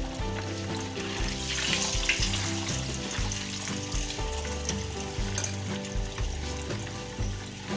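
Hot oil sizzling and bubbling in a wok as jengkol (dog fruit) deep-fries, stirred with a spatula, with a louder flare of sizzle about two seconds in. Background music plays underneath.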